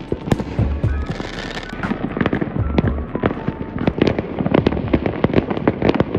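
Fireworks going off in a rapid, irregular run of sharp bangs and crackles, coming thicker in the second half.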